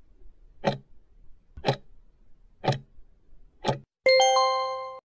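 Clock-tick countdown sound effect ticking once a second, four times, then a bright multi-tone chime about four seconds in that rings for about a second and cuts off. The chime marks the reveal of the correct answer.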